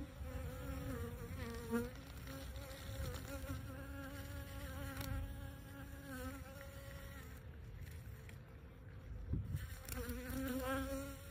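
Honeybee buzzing in flight: a steady wing hum that wavers slightly in pitch, fading after about seven seconds and swelling again near the end.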